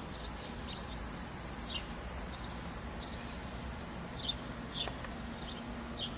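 Summer outdoor ambience: insects drone steadily at a high pitch, with short high chirps scattered through.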